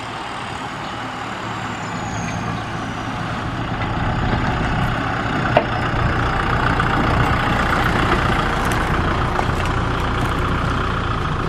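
Kubota M6040SU tractor's four-cylinder diesel engine running steadily as it pulls a loaded trailer past, growing louder as it draws near. There is one sharp knock about halfway through.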